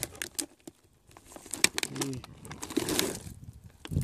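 Plastic water bottles and their packaging being handled, with scattered crinkles and clicks, while the fired bullets are dug out of them. A short low hum of a voice comes about two seconds in.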